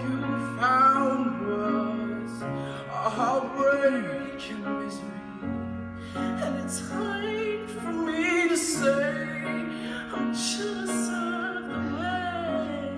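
Male vocalist singing a slow ballad live into a microphone, holding long notes with vibrato, accompanied by a grand piano playing sustained chords whose bass note changes every few seconds.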